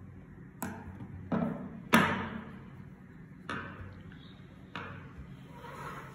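Large tailor's shears cutting cotton fabric: a few sharp snips and clacks, the loudest about two seconds in, before the shears are laid on the wooden table. Then the cloth rustles as hands smooth and shift it, with a couple more soft knocks.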